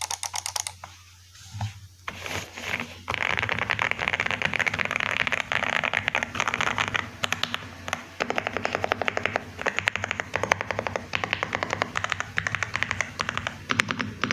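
Typing on an Aula F87 Pro V2 mechanical keyboard: a quick flurry of keystrokes, a few scattered presses, then fast continuous typing from about three seconds in, with short pauses between runs.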